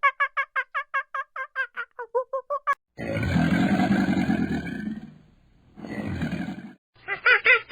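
Animal calls: a fast run of short pitched calls, about five a second, followed by two long, low roar-like calls.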